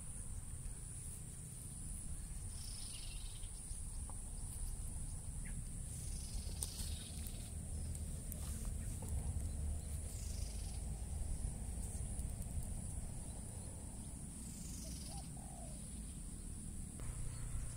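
Steady high-pitched drone of insects over a low rumble of wind on the microphone. A few brief falling swishes come through it every few seconds.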